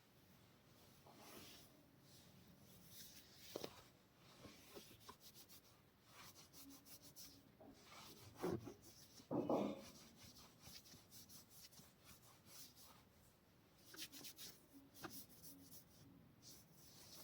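Hands rubbing and working through oiled hair and scalp in a head massage: faint, soft rubbing and rustling, with two louder, duller sounds a little past halfway.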